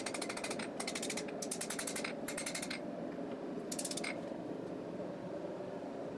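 Hammer striking a hot knife blank on the anvil in quick runs of blows, drawing steel down toward the heel, over a steady background hum.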